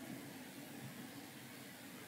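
Faint steady hiss with a low background hum: room tone, with no distinct sound.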